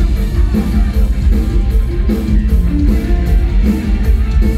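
Live mor lam band music played loud over the stage PA: electric guitar over a heavy bass line with a steady beat.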